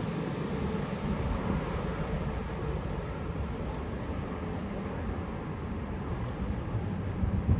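Emirates Boeing 777 airliner's jet engines on landing approach: a steady rumble and hiss as the twin-engine jet flares over the runway, the hiss slowly fading as it moves away.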